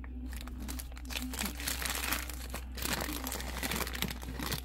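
Paper burger wrapper crinkling and rustling as hands unfold it, a dense run of quick crackles.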